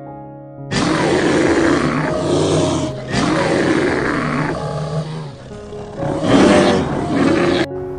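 An animal roaring in three long calls over background music, ending abruptly near the end.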